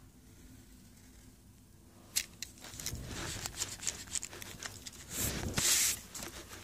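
Sheets of paper rustling and crinkling as they are handled and shifted, with sharp crackles starting about two seconds in and a louder rustle near the end.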